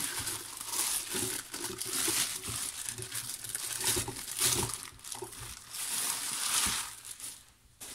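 Thin clear plastic bag crinkling and rustling in surges as it is worked off a large oil filter by hand, dying away near the end.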